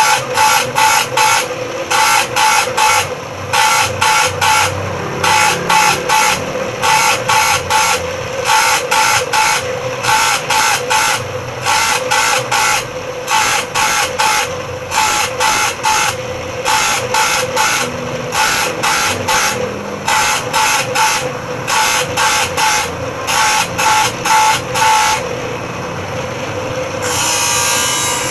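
Bench grinder running with a steady hum while a steel saw blade is touched against the wheel again and again, about three short grinds a second, cutting the saw's teeth. Near the end comes one longer, continuous grind of about a second.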